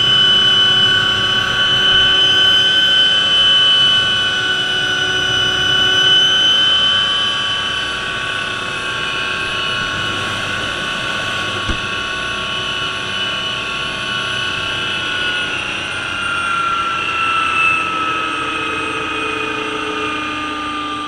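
Hughes OH-6A helicopter on the ground, heard from inside the cockpit: the Allison T63 turboshaft's steady high whine over the rotor and engine noise, with its pitch beginning to fall in the last few seconds as the engine winds down. A single click near the middle.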